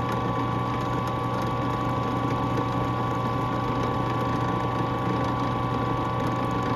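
Drill press motor running steadily with an even hum, spinning a clock wheel while its pivot is polished with a wooden stick pressed against it.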